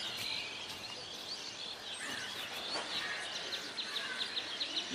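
Small birds chirping and calling in the background, turning into a quick run of repeated high chirps, several a second, from about three and a half seconds in.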